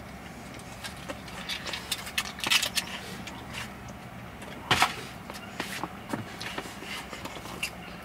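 Close-up mouth and hand sounds of eating a chicken nugget dipped in sauce: scattered small crunches, smacks and clicks, with a louder sharp crunch or crackle a little past halfway.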